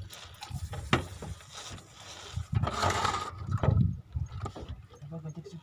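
Fishing reel being wound, with irregular mechanical clicks and knocks and a louder rattling stretch past the middle.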